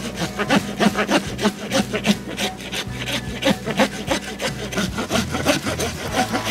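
Glock entrenching tool's folding push-saw blade cutting back and forth through a small standing tree trunk in quick, even strokes.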